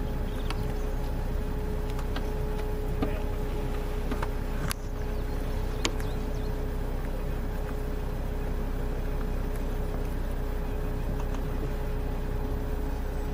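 Vehicle engine idling: a steady low hum with a steady mid-pitched tone running through it, and a few faint clicks.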